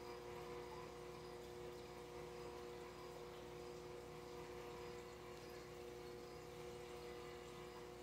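Faint, steady aquarium aeration: water bubbling from an air stone over an even pump hum.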